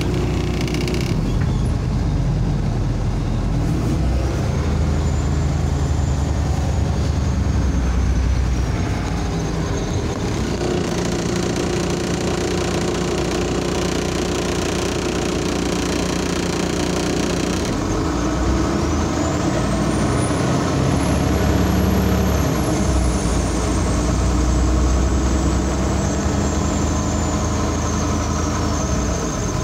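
MAZ-203 city bus pulling away and driving, heard from inside: the engine runs steadily and changes pitch several times as it gets under way, with a brief hiss at the start and a high whine that rises and then falls twice.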